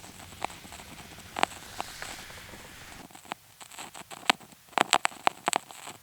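Yamaha Handysound HS-500 mini keyboard popping on its own: sharp irregular pops, sparse at first, then coming several a second after about three seconds.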